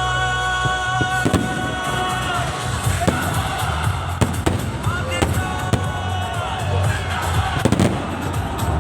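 Fireworks going off in a string of sharp, irregular bangs over loud music played through loudspeakers.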